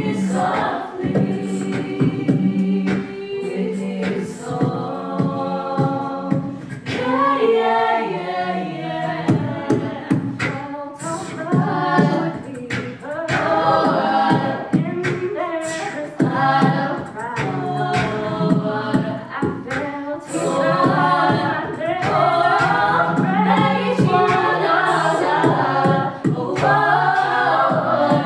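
Live a cappella group singing a song in several-part harmony, with a lead voice over the backing voices. Mouth-made percussion keeps a steady beat throughout.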